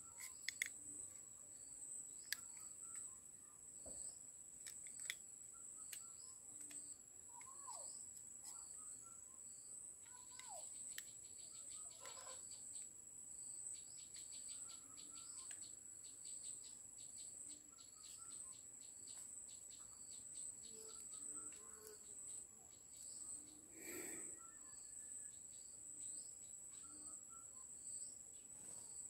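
Faint rural ambience: a steady high insect drone with repeated cricket-like chirps, and two short falling bird calls. A few sharp clicks in the first five seconds are the loudest sounds.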